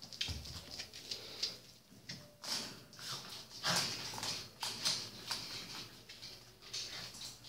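Collie puppies moving about and scuffling, their claws clicking and pattering in irregular bursts.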